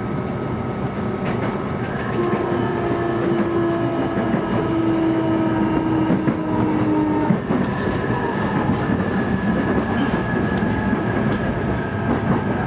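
E233-3000 series electric train heard from inside a passenger car while running: a steady rumble of wheels on rail with a few light clacks. About two seconds in, the steady electric whine of its traction motors and inverter joins in as several held tones; the lowest of them cuts off suddenly after about five seconds.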